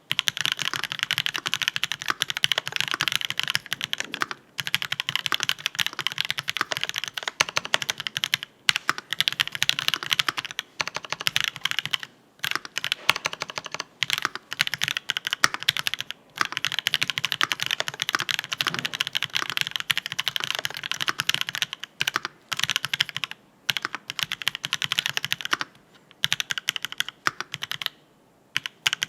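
Continuous fast typing on a MONSTAR XO V3 mechanical keyboard with a brass plate, Marshmallow switches and Aifei ABS keycaps: a dense stream of key clacks broken by several brief pauses.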